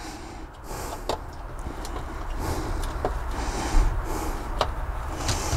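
A screwdriver driving screws into a brass rail clamp on G-gauge model railway track: a low, even rustling noise with a few sharp clicks.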